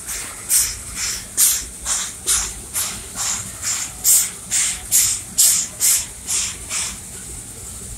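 Dixiana, a Shay geared steam locomotive, chuffing as it works along: sharp hissing exhaust beats from the stack, about two a second, that stop about seven seconds in.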